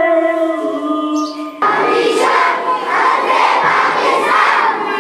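A boy singing into a microphone in long, slowly gliding notes, cut off abruptly about a second and a half in by several boys' voices shouting together loudly, in a rhythmic chant that pulses about twice a second.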